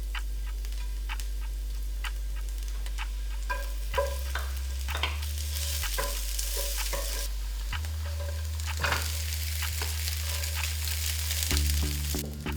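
Food sizzling in a hot pan while a utensil stirs and taps against it. The sizzle swells about five seconds in.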